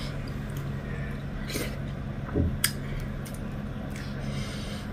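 Close-up eating sounds: chewing with a few short wet smacks and clicks, strongest around the middle, over a steady low hum.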